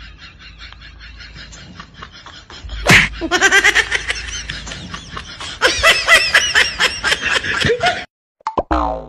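Laughter in short rhythmic pulses, with a sharp smack about three seconds in, after which the laughter gets louder and higher-pitched. The sound cuts out briefly near the end.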